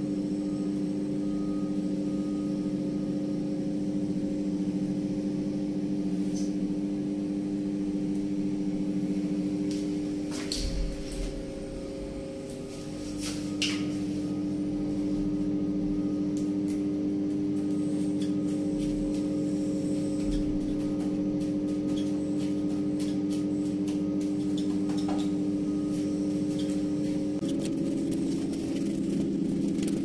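A steady mechanical hum, with a shift in pitch near the end, under scattered light clicks and scrapes.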